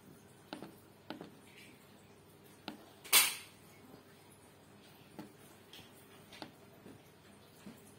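Scattered light clicks from a laptop's touchpad and keys as it is worked, with one louder, brief clatter a little after three seconds in.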